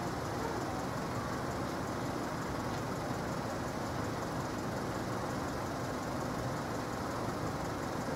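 A Subaru hatchback's flat-four engine idling steadily.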